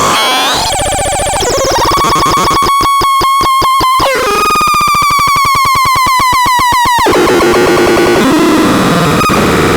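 Harsh electronic synthesizer tones: a gliding tone, then a tone chopped into rapid pulses, then a pulsing tone that slowly falls in pitch, giving way to a noisier wavering drone near the end.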